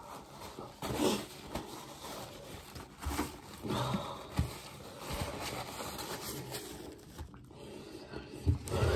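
Paper napkin and plastic wrap rustling and crinkling as they are handled, with a few soft breaths or hums in between.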